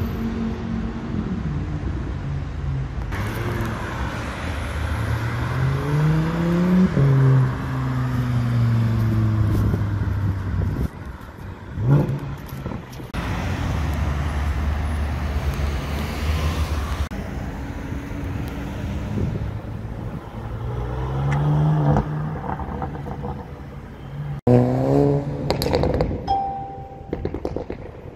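Chevrolet Corvette C7's V8 engine running and being revved repeatedly, with several rising revs, a few sharp blips and a steady low drone between them.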